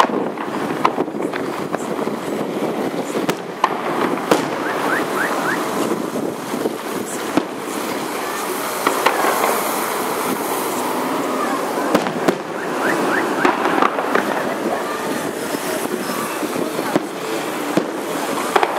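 Fireworks going off at a distance: scattered sharp bangs and pops over a steady hiss of city traffic.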